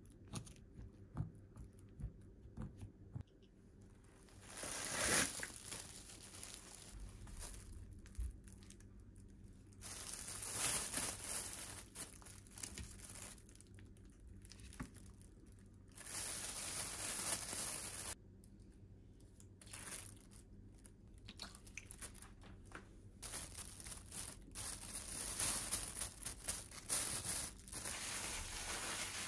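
A fork pricking raw chicken breasts on a foam tray with small clicks, then a thin plastic bag rustling and crinkling in stretches as the chicken is put in and kneaded with soy sauce and garlic.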